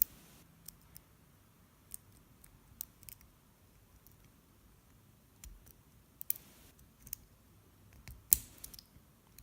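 Scattered small clicks and light scraping of a lock pick and tension wrench working the pins inside a small four-pin padlock, with a sharper cluster of clicks about eight seconds in.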